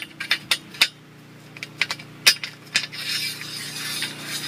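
Bolt and nut clinking against an aluminium IronRidge solar mounting rail as they are handled and slid into the rail's slot: about seven sharp metallic clinks over the first three seconds. A steady rushing hiss rises from about three seconds in.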